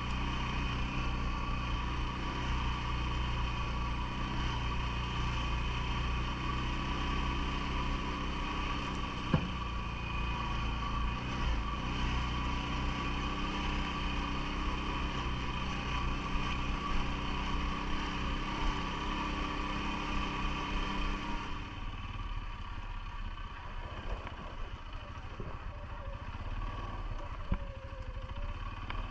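CFMoto ATV engine running steadily, its sound dropping and thinning a little about three-quarters of the way through, with a few sharp knocks.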